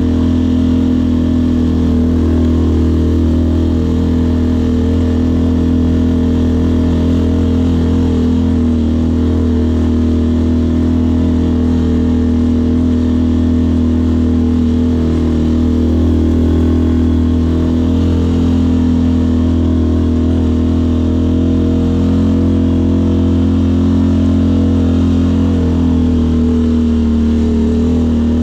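Off-road vehicle engine running steadily at moderate revs, its pitch dipping and rising slightly with the throttle a couple of times.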